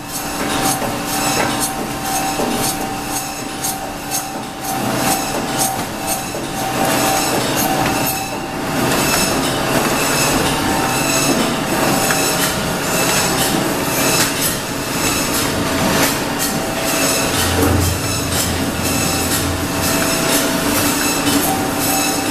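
Automatic poultry cut-up line running: its conveyors and cutting machinery keep up a steady mechanical din with a few held tones and a constant rapid clatter of clicks.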